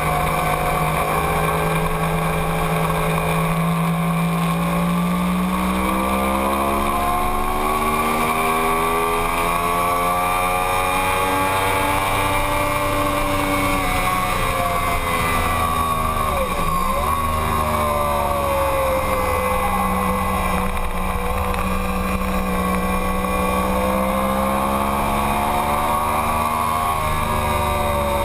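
2009 Yamaha YZF-R1's crossplane inline-four engine running hard at speed, heard from a camera mounted on the bike: its pitch climbs slowly for several seconds, falls away, dips sharply and briefly a little past halfway, then climbs again and eases off near the end.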